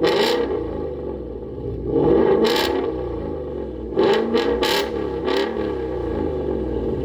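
2019 Ford Mustang GT's 5.0 L V8 running through a Roush axle-back exhaust and X-pipe (resonator deleted), with a steady deep rumble broken by about six short, sharp bursts from the exhaust: one at the start, one about two and a half seconds in, and a quick cluster around four to five and a half seconds.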